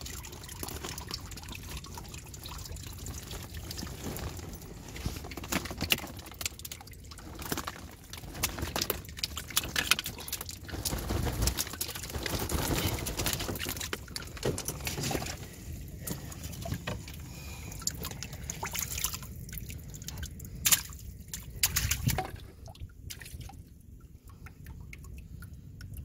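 Water trickling, dripping and splashing, with scattered small knocks. Near the end a hand sloshes through shallow water in a boat's hold.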